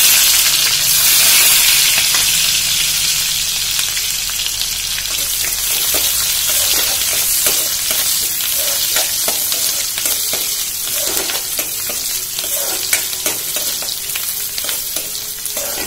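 Chopped onion sizzling in hot oil with cumin and mustard seeds in a kadhai, the frying hiss strongest at first and easing slowly as the onion cooks. A spatula scrapes and taps against the pan as the onion is stirred.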